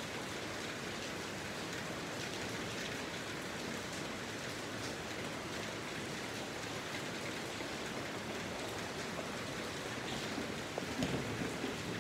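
Steady hiss of rain falling, with a few light knocks near the end.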